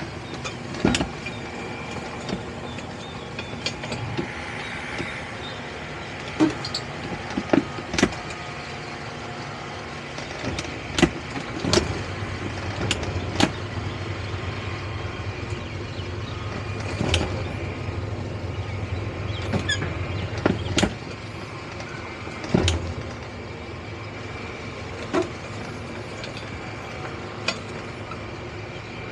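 Towboat's outboard engines running at low speed during close manoeuvring, a steady drone that grows stronger for several seconds about halfway through and then drops off suddenly. Scattered sharp knocks and clunks sound throughout.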